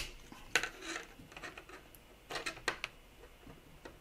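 3D-printed plastic parts clicking and clacking as the peg joint of two reel-stand pieces is worked, a tight fit. A sharp click at the start, a couple more about half a second to a second in, and a quick cluster of clicks around two and a half seconds.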